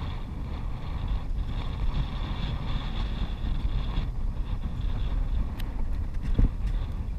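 Wind buffeting the microphone in a steady low rumble, with a few light knocks, the loudest about six and a half seconds in.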